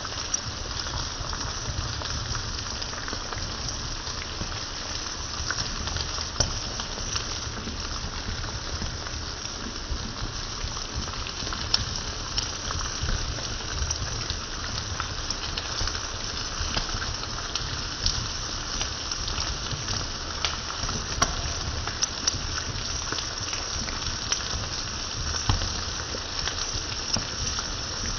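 Chopped offal in tomato sauce sizzling in a hot skillet: a steady frying hiss with frequent small pops and crackles.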